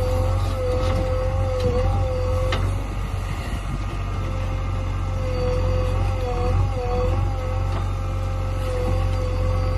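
JCB 3DX backhoe loader's diesel engine running under digging load, with a steady high hydraulic whine that wavers and dips slightly as the arm works. A single brief knock about two and a half seconds in.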